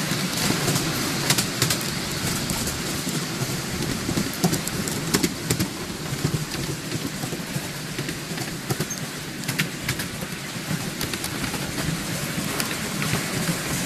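Ride-on miniature railway train running along the track, heard from a passenger car: a steady rumble of wheels on rail with irregular clicks and knocks.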